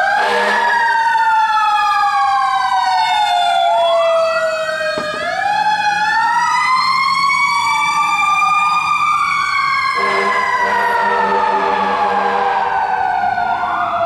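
Fire truck sirens wailing loudly: several sirens at once, each sliding slowly up and down in pitch, out of step with one another.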